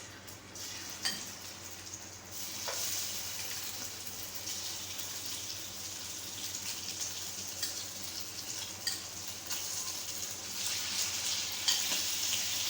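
Chicken pieces sizzling as they are laid into hot oil in a pan, the frying hiss growing louder about two seconds in and then running steadily, with a few light taps as pieces go in.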